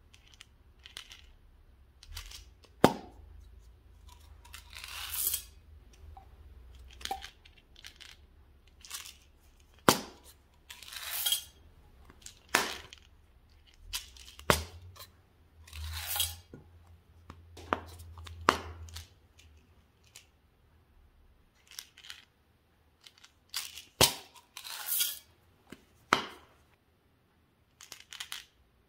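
Plastic flip-top caps of M&M's Minis tubes snapping open, with tearing of the tubes' seal wrappers and small candy-coated chocolates rattling out into a glass dish. The sharp snaps and short rustling swells come one at a time, with quiet gaps between.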